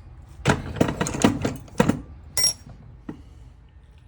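Small metal parts clattering while being handled: a quick run of sharp knocks and clicks, then a single ringing metal clink about two and a half seconds in and a last small click.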